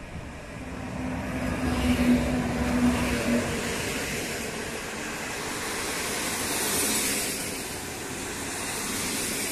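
A Newag Griffin electric locomotive hauling PKP Intercity coaches passes close by. Its steady hum peaks for about three seconds as it goes past, then the wheels of the coaches run on over the rails with a broad, even rushing noise.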